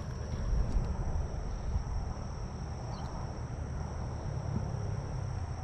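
Steady high-pitched trilling of insects, with a low rumble of wind on the microphone.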